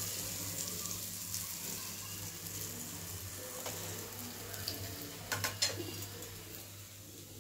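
Hot oil sizzling in an iron kadai as rava-coated pomfret pieces are lifted out; the sizzle fades gradually. About five and a half seconds in, a few sharp clicks of the metal spatula against the steel plate.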